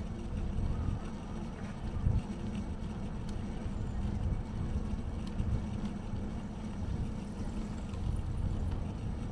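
Riding noise from a bicycle moving along city streets: a steady low rumble that wavers in strength, with a brief louder jolt about two seconds in.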